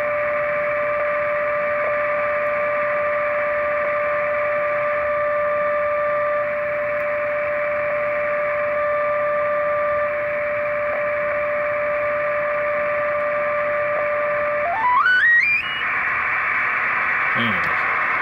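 Software-defined radio receiving single sideband on the 20 m band: a steady whistle tone from an unmodulated carrier over band hiss, which the operator takes for abnormal interference, maybe from a damaged radio station nearby. About fifteen seconds in, the tone steps upward in pitch and slides out of hearing as the receiver is retuned, leaving only the hiss.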